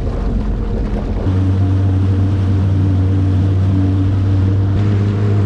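Jet ski engine running with a steady low drone, which sets in clearly a little over a second in and holds at an even pitch.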